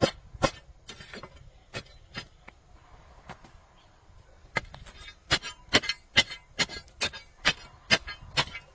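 A series of sharp knocks, scattered at first, then coming about twice a second through the second half.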